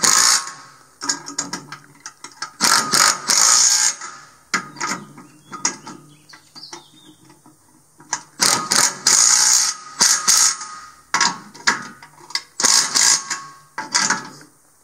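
Cordless impact driver hammering on the winch-stand bolts of a boat trailer, tightening them in five bursts of rapid rattling impacts, each up to about two seconds long, with short pauses between.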